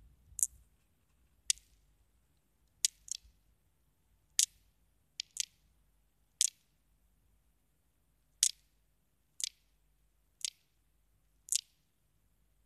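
Sharp, high, short ticks, about one a second at uneven spacing, some in quick pairs, over a faint low hum.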